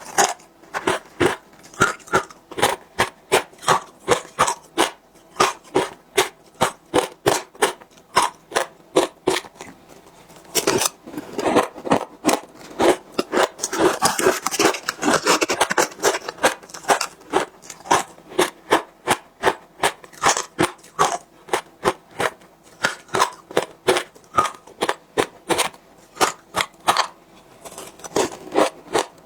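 Close-miked biting and crunching of frozen matcha ice, a steady run of sharp crunches about two to three a second, thicker and busier around the middle.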